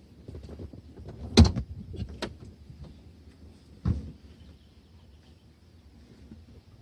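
A few knocks and thumps: a sharp, loud one about a second and a half in, lighter ones soon after, and another thump near four seconds, then faint scattered rustling and handling noise.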